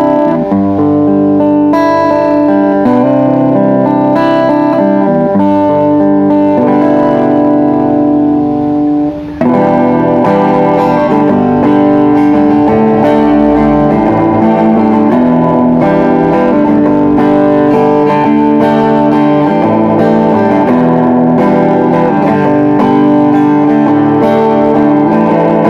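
Jumbo-body acoustic-electric guitar played through a small 10-watt practice amp: a run of notes and chords. The level drops briefly about nine seconds in before fuller playing resumes.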